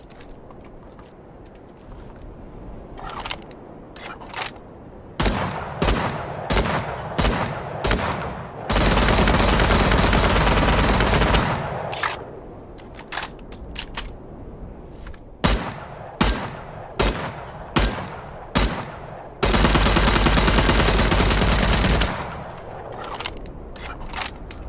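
Assault rifle firing: scattered single shots and short bursts, with two long full-auto bursts of about two and a half seconds each, one about a third of the way in and one past the three-quarter mark.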